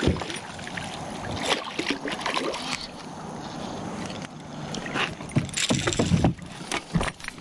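Water splashing and sloshing against a small boat's hull as a hooked chain pickerel thrashes at the surface beside it, with scattered knocks and thuds from gear being handled in the boat.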